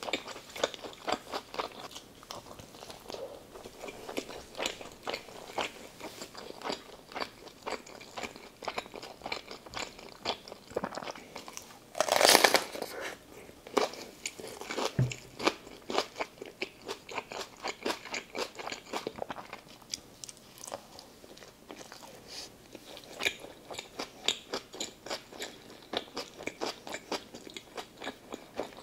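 Close-miked mouth sounds of chewing a cheeseburger, a fast run of wet, crisp little clicks. About twelve seconds in comes a loud crisp crunch, a bite into a raw orange sweet pepper, followed by more crunchy chewing.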